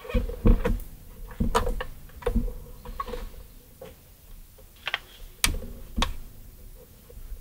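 Hands handling multimeter test leads and an alligator clip on a guitar's control pots and body: irregular clicks and taps with several dull knocks.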